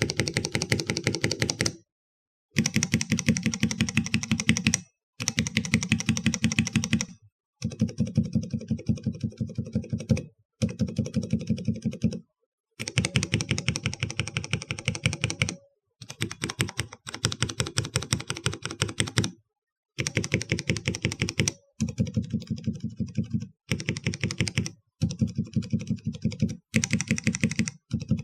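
Cherry MX mechanical keyboard switches on a switch tester being pressed rapidly and repeatedly, one switch after another. The clicking comes in bursts of a second or two with brief silences between them, and the sound changes from burst to burst: some are sharp and bright, others duller.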